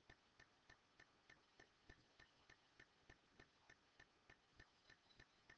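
Faint, even ticking, about three ticks a second, over an otherwise near-silent room.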